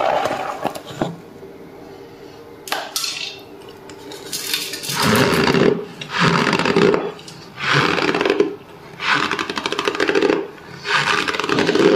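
Cornstarch crunching and squeaking as it is pressed and worked in the bowl: a couple of strokes near the start, then a regular run of crunches roughly every one and a half seconds.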